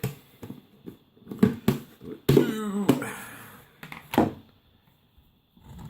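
Hard plastic knocks and clunks from the electric coffee grinder's lid and bowl being handled after grinding, with one longer scraping sound about two seconds in.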